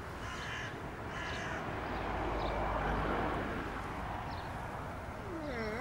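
Crows cawing, two harsh calls in the first second and a half, over a low outdoor hush that swells in the middle.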